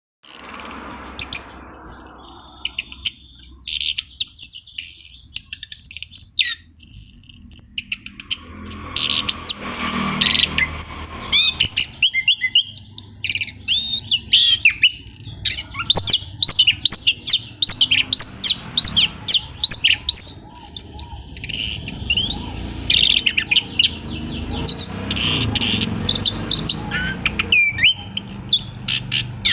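Orange-headed thrush (anis kembang) singing a fast, varied, continuous song of chirps, trills and whistles that bend up and down in pitch. It is played as a lure recording to prompt a caged thrush that is reluctant to sing.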